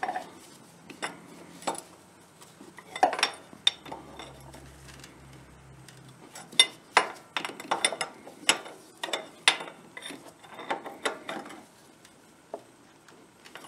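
Ratchet wrench clicking in short, uneven runs as the nut on a mower engine's oil drain tube fitting is tightened down over a new O-ring to stop an oil leak.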